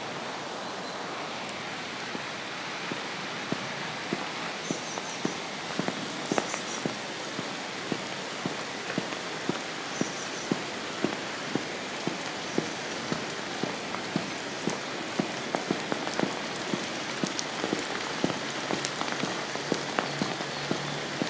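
Steady rain, with large drops tapping sharply on a hard surface close by; the taps come irregularly, several a second, and grow more frequent after the first few seconds.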